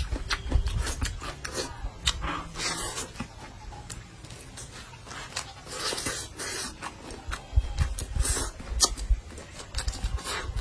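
Eating sounds: wet chewing and mouth smacks, with scattered sharp clicks and soft low thuds throughout.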